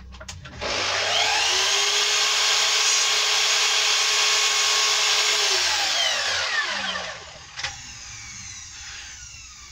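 Power tool motor starts about half a second in, runs up to speed with a steady whine for about five seconds, then switches off and winds down, falling in pitch. It is trimming a homemade beech domino tenon that was a fraction long.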